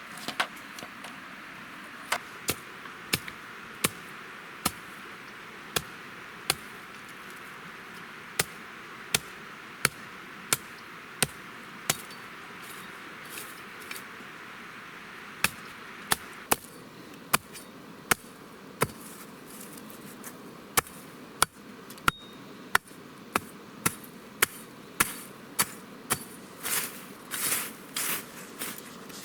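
Sharp, regular chopping blows on wood, about one to two a second, over the steady rush of a stream. Near the end come a few longer, rasping crackles.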